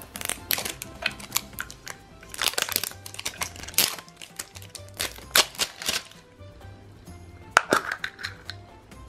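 Thin plastic shrink-wrap crinkling and crackling as it is peeled off a small plastic toy capsule. Then a sharp plastic click a little before the end as the capsule is pulled open. Soft background music plays underneath.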